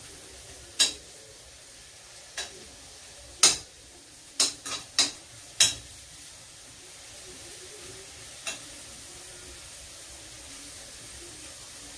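Mushrooms sizzling in a frying pan as a utensil stirs them, with sharp knocks of the utensil against the pan, several of them in a cluster around four to six seconds in.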